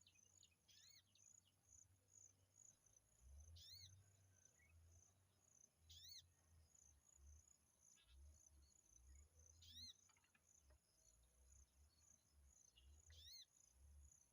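Faint outdoor ambience: insects chirring steadily in a high, pulsing trill, about three or four pulses a second, over a thin continuous high whine. A bird gives short, arched call notes every two to four seconds, about five in all.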